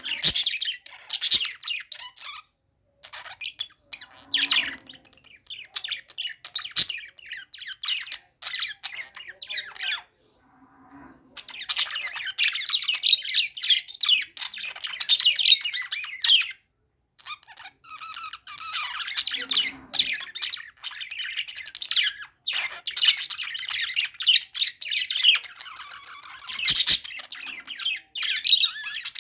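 Pet budgerigars (budgies) chattering, with quick high chirps, warbles and squawks in long busy spells broken by a few short pauses.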